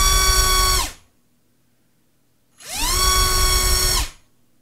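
Flycolor MT2204 2300kv brushless motor spinning a Racecraft T5045 propeller on a thrust stand at full throttle: a loud high whine cuts off about a second in. About two and a half seconds in it spools up again with a rising pitch, holds steady, and cuts off near the end.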